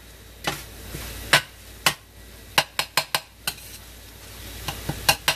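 A spatula chopping and stirring chicken Italian sausage in a stainless steel skillet: irregular sharp taps and scrapes against the pan, about a dozen in all, over the sizzle of the meat frying.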